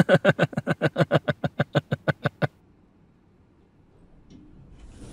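A man laughing, a quick run of short laughs for about two and a half seconds. A faint steady hum comes up near the end.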